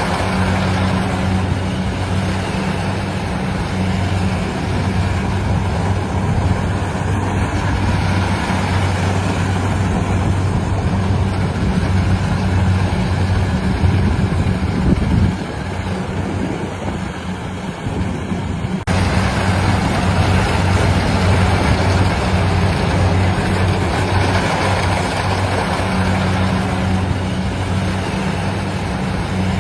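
Engine of a rice-harvesting machine running steadily with a low hum and mechanical clatter. It softens for a few seconds past the middle, then comes back abruptly.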